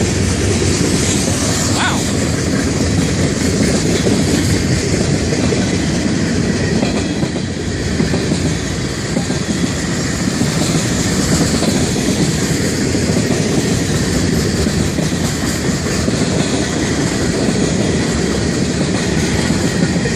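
Freight cars of a Florida East Coast Railway train rolling steadily past at slow-order speed, wheels clattering over the rail joints.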